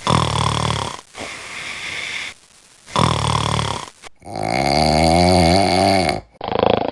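Loud snoring sound effect: a snore with a softer breath after it, a second snore, then a longer drawn-out snore with a clear pitch.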